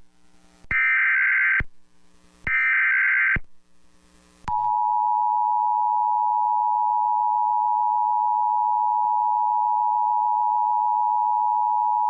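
Emergency Alert System header on broadcast radio: two short bursts of the shrill digital SAME data tones, then, about four and a half seconds in, the steady two-tone attention signal begins. It announces a National Weather Service severe thunderstorm warning.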